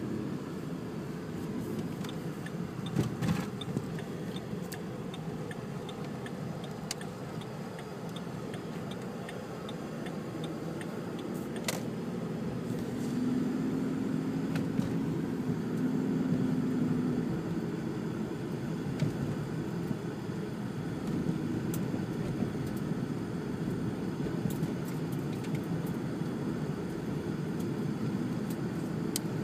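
Car cabin noise while driving on a snow-covered road: a steady low rumble of engine and tyres, with a few sharp clicks and a brief low hum about halfway through.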